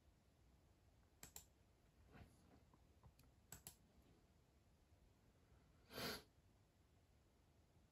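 Computer mouse double-clicks: two quick double clicks a couple of seconds apart, with a few fainter ticks, over near silence. Late on comes a short soft breath-like whoosh.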